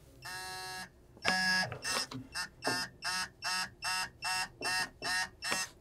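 Hand ratchet on the oxygen-sensor socket ratcheting in quick back-and-forth swings as the driver's side oxygen sensor is run in and tightened. About a dozen short rapid-clicking strokes, one longer stroke first, then settling to about two a second.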